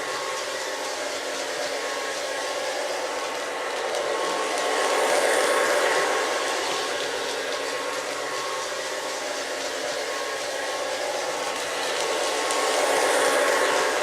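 Lionel O-gauge Alco S4 diesel switcher model running on its track: a steady whir of motor and wheels on the rails. It swells louder twice, about five and about thirteen seconds in, as the engine passes close by.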